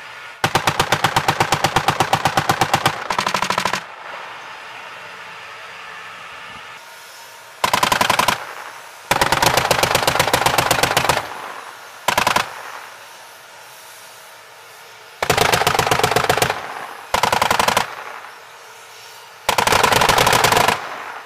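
Machine guns on M1 Abrams tanks firing in bursts of rapid automatic fire, about eight bursts in all. The longest burst runs nearly three seconds, and the others last from a fraction of a second to two seconds, with short gaps between them.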